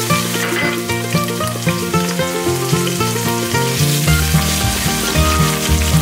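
Chopped onion sizzling in hot olive oil in a stainless steel pot as it is stirred, a steady frying hiss, with background music playing under it.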